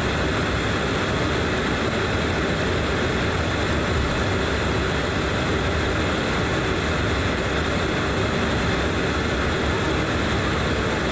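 Cabin noise of a DHC8-Q400 turboprop airliner taxiing: the Pratt & Whitney PW150A engines and six-blade propellers run at a steady low taxi power, heard through the cabin wall next to the propeller.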